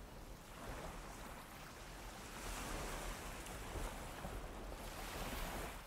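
Faint ocean surf: a steady wash of waves that swells and eases a little.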